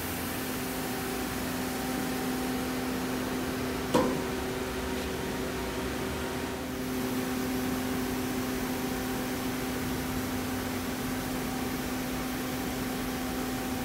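Femco HL-55S CNC lathe sitting powered up at idle, giving a steady machine hum with several constant tones. A single sharp knock comes about four seconds in.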